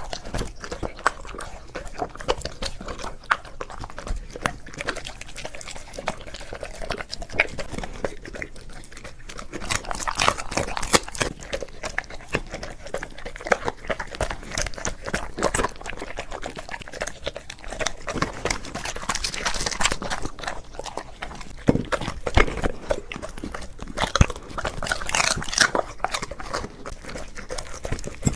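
A golden retriever chewing and crunching on an ostrich wing, with many sharp crunches that come thicker in a few spells.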